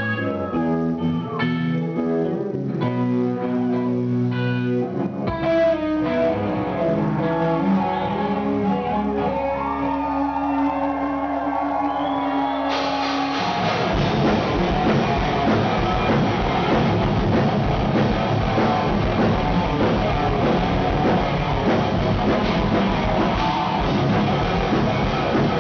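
Live rock band: an electric guitar picks out separate notes, joined about five seconds in by a low held bass note. About halfway through, the full band comes in with heavy distorted guitars and drums.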